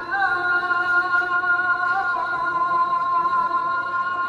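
Background music: a high sung note held steadily for several seconds.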